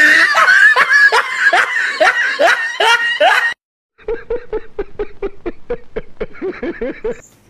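Loud laughter that cuts off suddenly, then, after a short gap, a man laughing in quick, even 'ha-ha' pulses.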